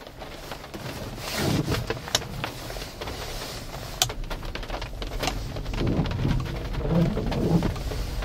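Lexus RX400h hybrid moving off on its electric motors with the petrol engine off, heard from inside the cabin: a low, uneven tyre and road rumble with scattered sharp clicks and ticks.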